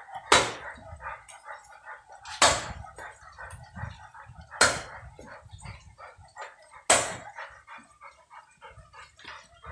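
Cleaver chopping sticks of firewood against a wooden stump chopping block: four sharp chops, about two seconds apart.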